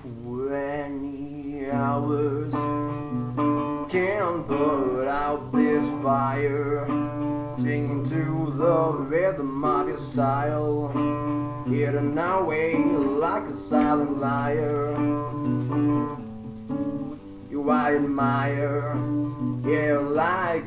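Acoustic guitar played as accompaniment while a man sings a slow ballad over it.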